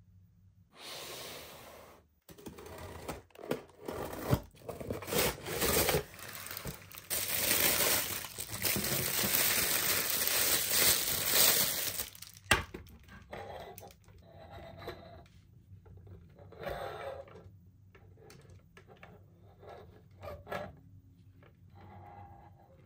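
Thin white packing wrap crinkling and tearing loudly for about eleven seconds as a hard plastic toy doll is pulled out of it. After that come quieter handling sounds and a few light knocks of the plastic doll.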